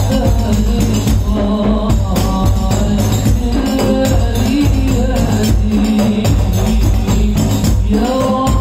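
Islamic hadrah-style percussion ensemble playing: octagonal frame drums, large metal-bodied drums and small hand drums beat a steady rhythm with a heavy low end. A group of men sings devotional sholawat along with the drums.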